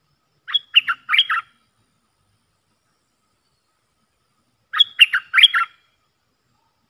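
Merbah lekir bulbul calling: two short, bright phrases of about four quick notes each, about four seconds apart.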